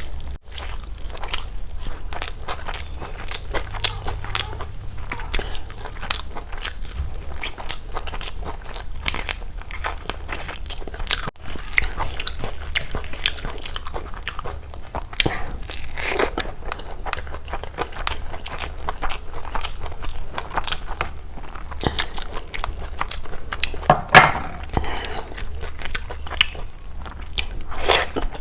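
Close-miked eating: steady chewing and biting with many small wet mouth clicks and occasional louder crunchy bites, the loudest about twenty-four seconds in.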